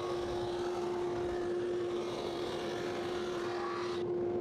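Drum sander running with a steady hum while a frame-and-panel cabinet door passes under the sanding drum on the conveyor, giving a hissing sanding noise. The sanding noise cuts off about four seconds in as the door clears the drum, leaving the machine's hum.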